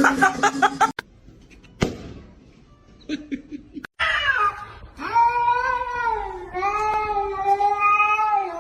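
Domestic cat yowling. A falling cry is followed by two long, drawn-out wavering calls in the second half, after a few shorter sounds broken by abrupt cuts.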